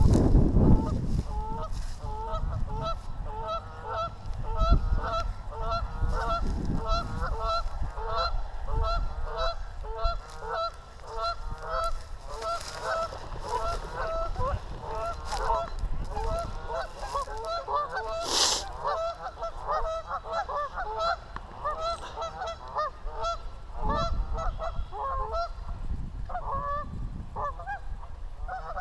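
A flock of geese honking: many overlapping calls that keep on without a break. Wind buffets the microphone at the start and gusts now and then.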